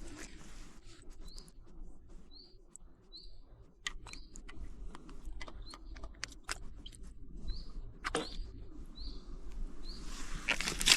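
A small bird repeating one short, high chirp about once a second, over scattered sharp clicks. Near the end a louder rushing noise comes in.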